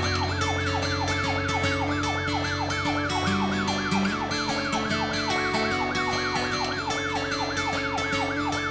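Fast electronic siren, each wail dropping quickly in pitch and repeating about four or five times a second, over background music.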